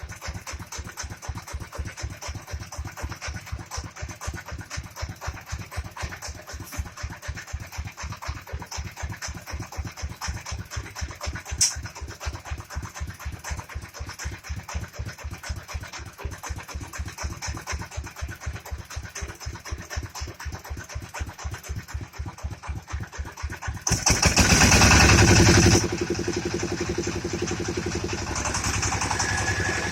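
Engine of a mobile rice milling machine running slowly with an even putt-putt, about five beats a second, with one sharp click about twelve seconds in. Near the end it gets much louder for about two seconds, then settles into a louder, steadier run.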